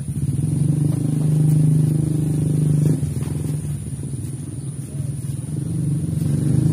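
A small vehicle engine running close by, its pitch climbing steadily for about three seconds, then dropping off suddenly before it runs on and builds again.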